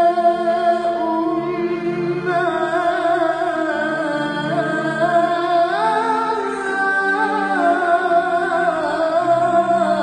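A young girl singing a hymn to the Virgin Mary, holding long notes with vibrato and ornamented turns, over a low sustained accompaniment.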